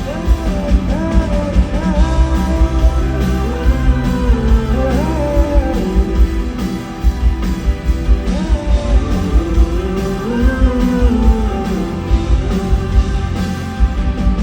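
Live rock band playing a song with singing over electric guitar, bass and a steady drum beat.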